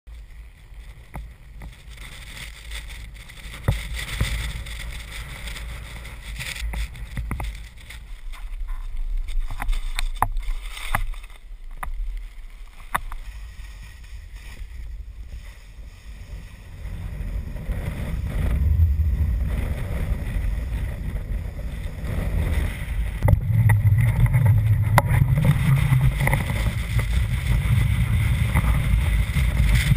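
Strong wind buffeting the camera's microphone, a gusting low rumble with scattered sharp clicks and crackles; it grows louder about halfway through and stays strongest near the end.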